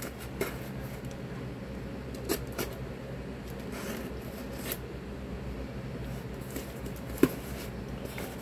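Cardboard shipping box being handled and worked open by hand: scattered scratching and rustling with occasional clicks, the sharpest about seven seconds in.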